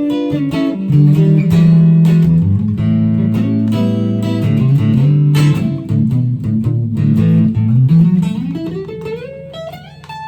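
Telecaster electric guitar being played: a run of picked notes and chords, then a slide up the neck, one note rising steadily in pitch for about two seconds near the end.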